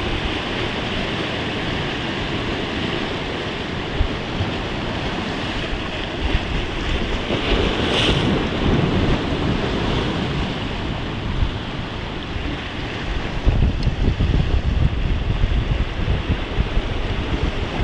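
Sea waves washing and breaking over shoreline rocks, a steady rush that swells louder about eight seconds in. Wind gusts rumble on the microphone near the end.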